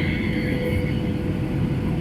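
Steady low rumble of an airliner's engines and airflow heard inside the passenger cabin as the aircraft circles in a holding pattern, with a thin steady hum over it and a faint higher whine that fades out within the first second.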